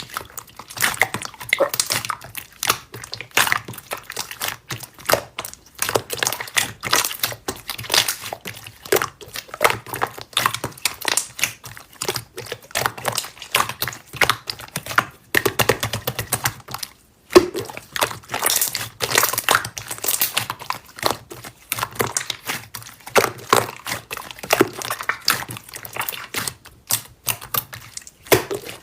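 Slime being squished, pressed and poked by hand, making a dense run of crackling and popping clicks.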